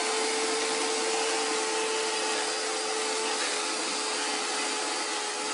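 Chainsaw engine running steadily, with a constant droning tone that drops slightly in pitch about three and a half seconds in.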